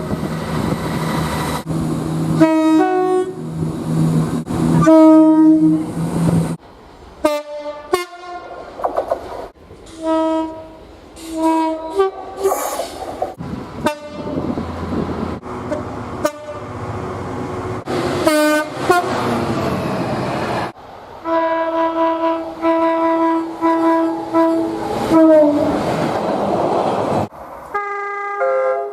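Train horns from a string of different trains, cut one after another: many short toots and longer blasts, including a run of several quick toots in a row about two-thirds of the way through. Between the horns come the rush and rumble of trains passing on the rails.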